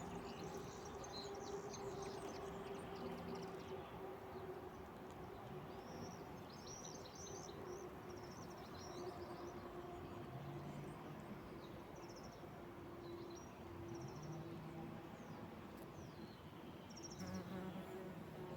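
Bumblebee buzzing steadily, its hum coming and going slightly in pitch and strength as it moves among the flowers. Small birds chirp and sing high above it.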